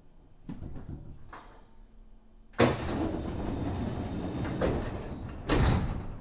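Passenger doors of a Nagoya Municipal Subway 3050 series train sliding open at a station stop: a sudden rush of air and rolling noise starts about two and a half seconds in, followed by a second loud clunk near the end.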